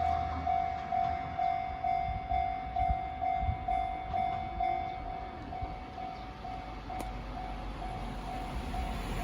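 Japanese railway level crossing's electronic warning bell ringing at about two dings a second, becoming fainter about halfway through. A train's low rumble dies away just at the start and a low rumble builds again near the end.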